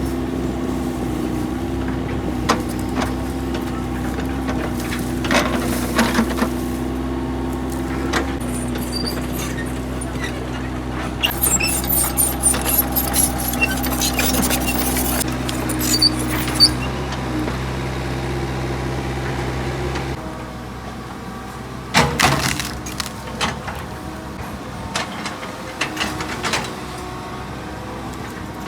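Excavator's diesel engine running steadily, with scattered metal clanks and knocks from the working machine. About twenty seconds in the engine sound drops away, leaving quieter knocks and clatter.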